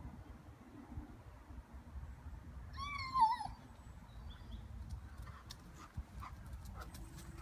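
A Rhodesian ridgeback gives one short, high whining cry about three seconds in, its pitch bending up and down. Toward the end come quick light footfalls of her paws as she runs past close by.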